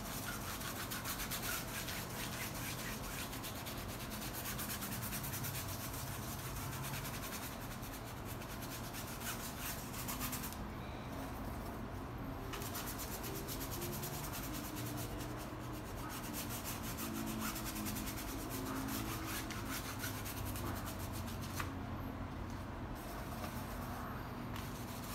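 A large paintbrush scrubbing acrylic paint across textured canvas in rapid horizontal back-and-forth strokes, a scratchy rubbing. It breaks off briefly twice, about eleven seconds in and again near the end, while the brush is at the palette.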